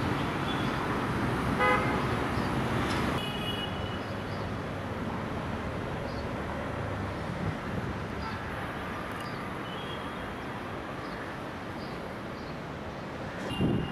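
Road traffic running steadily, with a vehicle horn tooting once briefly about two seconds in.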